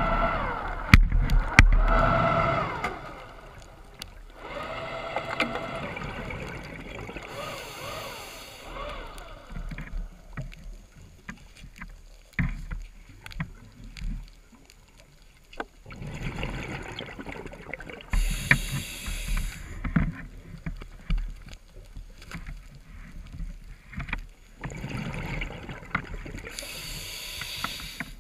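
A scuba diver breathing through a regulator underwater: bursts of exhaled bubbles three times, about ten seconds apart, with scattered clicks and knocks. It is loudest in the first few seconds, with a rush and knocks.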